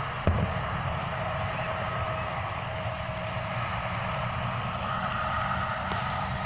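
A steady low mechanical hum with a faint high whine running through it, and one sharp firework bang shortly after the start.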